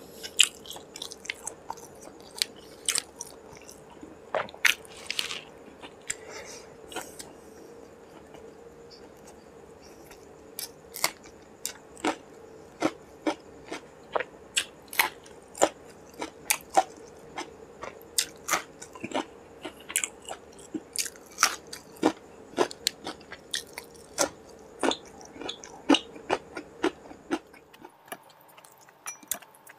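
Close-miked chewing and biting of a mouthful of rice and curry, with sharp wet mouth clicks and smacks coming a few times a second. A fresh green chilli is bitten about halfway through.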